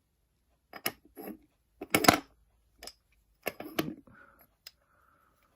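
Toy railway coaches being handled: a string of short clicks and knocks of small hard pieces, the loudest about two seconds in and a quick cluster a little later, then faint rustling near the end.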